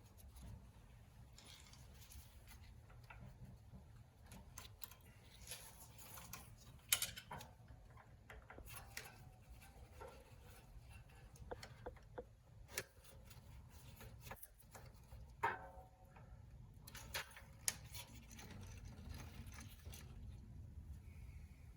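Faint, scattered clicks and light taps of small parts being handled while a VW Beetle carburetor is opened and its float checked, over a low steady hum. The sharpest clicks come about seven seconds in and again a little past the halfway point.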